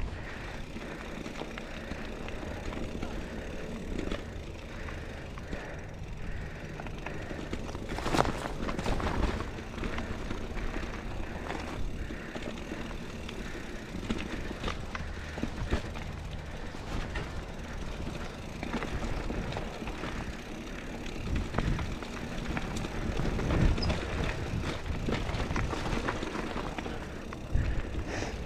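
Scott Spark 950 full-suspension mountain bike on Maxxis Dissector tyres riding over rocky dirt singletrack: steady tyre and trail noise with frequent rattles, clicks and knocks from the bike, the loudest about eight seconds in.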